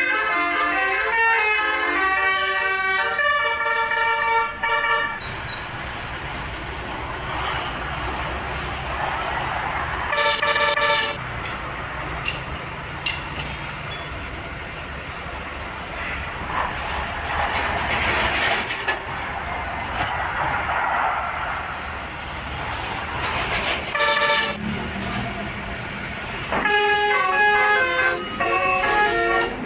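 Bus's multi-tone 'telolet' basuri musical horn playing a tune of quickly changing notes, then stopping. Two short horn blasts follow about ten and twenty-four seconds in, with a steady rushing noise between them, and the tune starts again near the end.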